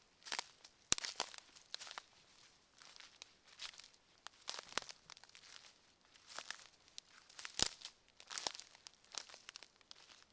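Footsteps crunching and crinkling on a forest floor, about one step a second, with a few sharper cracks among them.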